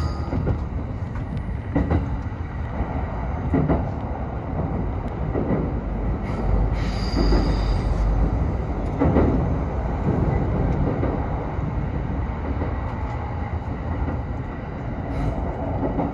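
Electric commuter train running at about 60 km/h, heard from inside the driver's cab: a steady rumble of wheels on rail with a knock roughly every two seconds as the wheels pass over rail joints. A brief, high wheel squeal comes about seven seconds in.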